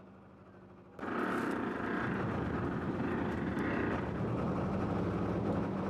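A boat's motor running with a loud, steady low rumble, heard from on board, cutting in suddenly about a second in after a faint first second.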